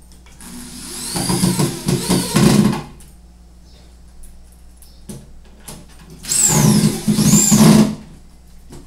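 Corded electric drill driving screws into the edge of a cabinet panel, in two bursts of a couple of seconds each, the first just under a second in and the second about six seconds in. Within each burst the motor's whine rises and falls twice as the trigger is squeezed and let off.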